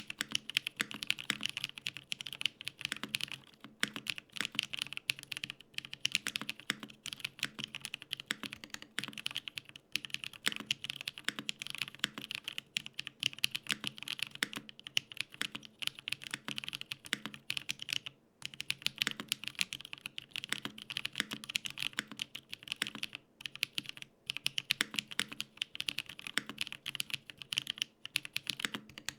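Steady, fast typing on a Gok 7V 75% custom mechanical keyboard built with an FR4 plate, no foam, lubed Holy Panda tactile switches and GMK Oblivion keycaps: a dense run of key clacks with a few short pauses, one about eighteen seconds in.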